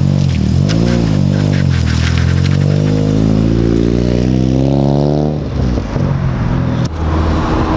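Nissan 240SX engine pulling away from a standstill on a freshly installed clutch. A short blip of revs is followed by a steady climb in revs as the car accelerates off, which drops away about five seconds in. Near the end the engine drones steadily.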